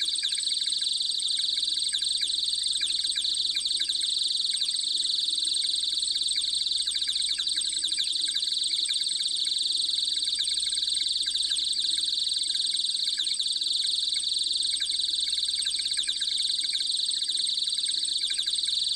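Birds chirping, many short quick calls, over a continuous high-pitched buzzing trill that never lets up, like insects in the background.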